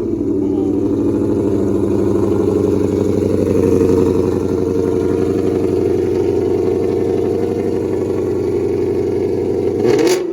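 Ford Mustang engine idling loudly and steadily just after start-up, with a brief rise in revs near the end.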